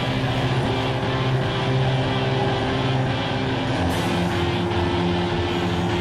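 A vehicle engine running steadily, with music playing along.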